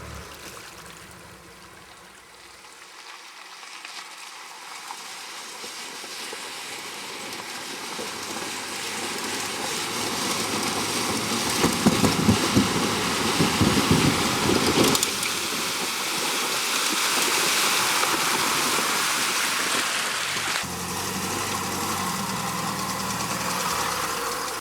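A vehicle driving on a rough dirt track: a steady rushing noise that grows louder, with a stretch of heavier rumbling and knocks partway through.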